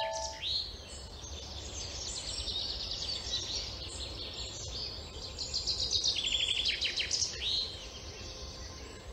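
Woodland ambience: several birds chirping and trilling, busiest a little past the middle, over a low steady rumble.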